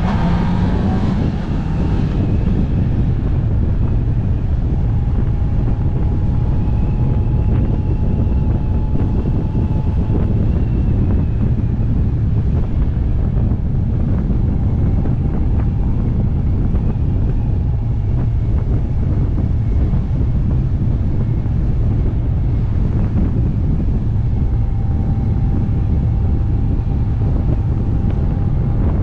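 Wind buffeting the microphone of a camera mounted on a moving motorcycle, a loud steady rumble, with the motorcycle's engine under it. A rising engine note in the first second or two gives way to steady cruising.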